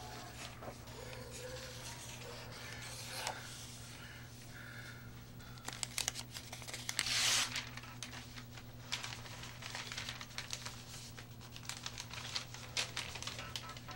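A pen scratching on newsprint as a notice is circled, then newspaper pages rustling and crinkling as they are handled and turned. The rustle is loudest a little past the middle, with crackles after it, all over a steady low hum.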